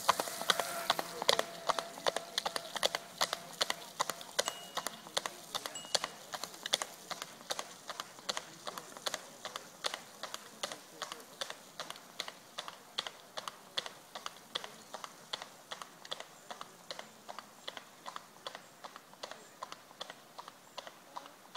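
Horse's hooves clip-clopping on a paved path as it pulls a carriage away, a steady beat of about four hoof strikes a second that fades as it draws off.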